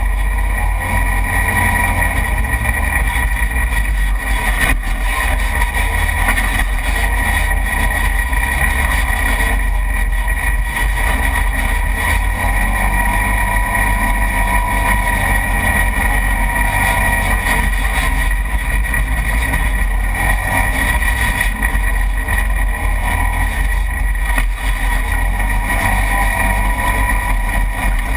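Side-by-side UTV driving fast over a dirt trail: a steady engine drone with a deep rumble underneath.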